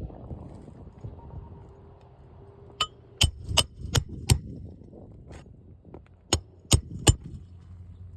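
Hammer driving roofing nails into an asphalt shingle: five sharp, ringing strikes in quick succession about three seconds in, then three more a couple of seconds later.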